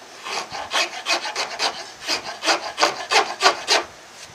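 Hand file stroking back and forth across the wooden guitar headstock, about four quick rasping strokes a second, as the headstock facet is drawn out to the line. The filing stops shortly before the end.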